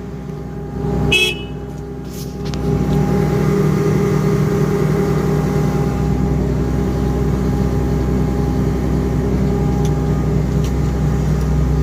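An engine running steadily, getting louder about two and a half seconds in and then holding level, with a short click about a second in.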